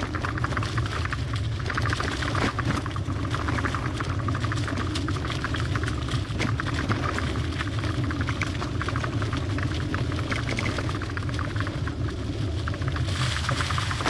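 Trek hybrid bicycle rolling over a bumpy dirt trail: a steady low rumble with constant irregular rattling and clicking from the bike as it goes over the bumps.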